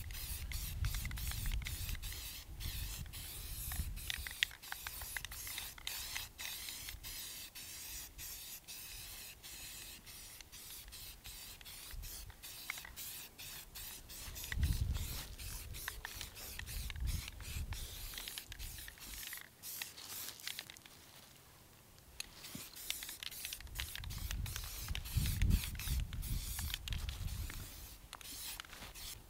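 Aerosol spray paint can spraying a green base coat in many short hissing bursts, pausing for a couple of seconds near the end before starting again. A low rumble comes and goes underneath and is loudest around the middle and near the end.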